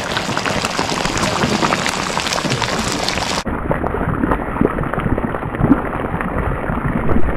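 Pork pieces in a thick red-wine sauce sizzling and bubbling in a pan, a steady crackle. About three and a half seconds in the sound turns duller.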